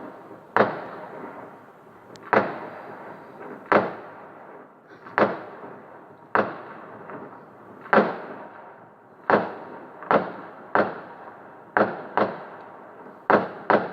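Fireworks exploding in a steady run of about a dozen loud bangs, roughly one a second. Each bang has a short fading echo, and a few come in close pairs.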